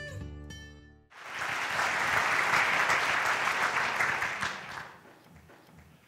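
The last notes of intro music die out in the first second, then an audience applauds for about four seconds, fading away near the end.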